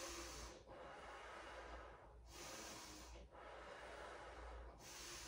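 A person breathing slowly and deeply: faint, airy inhales and exhales, each lasting one to two seconds, with short breaks between them.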